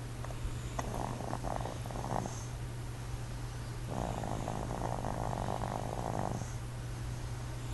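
A sleeping person snoring: a shorter snore about a second in and a longer one from about four seconds in, both with a fluttering rattle, over a steady low hum.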